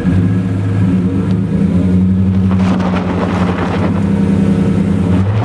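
Pickup truck engine running low and steady while the truck creeps forward on gravel. From about halfway through, the tyres crunch over the loose stones.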